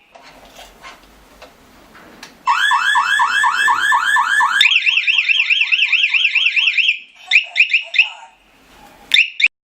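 Electronic alarm siren of a G2C home alarm system sounding loudly after a quiet start. It begins with rapidly repeated rising whoops, about five a second, then switches to a fast up-and-down warble, then breaks into short bursts that stop and start near the end.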